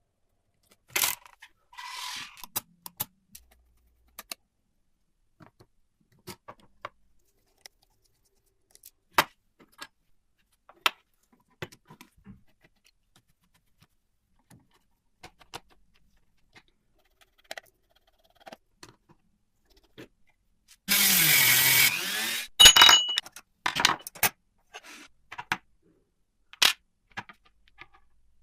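Small metal parts and hand tools clicking, tapping and clinking against each other and a work surface, in scattered single knocks. About two-thirds of the way through there is a loud rushing burst lasting about a second and a half, followed by a quick cluster of clinks.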